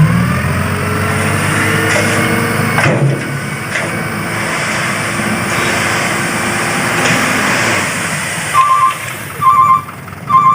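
Heavy truck engine running with a steady rumble and hiss, then a truck's reversing alarm beeping at about one beep a second near the end.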